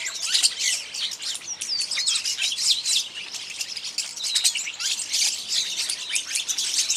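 A flock of rosy starlings (rose-coloured starlings) calling: a dense, constant chatter of quick, overlapping chirps and short whistled notes.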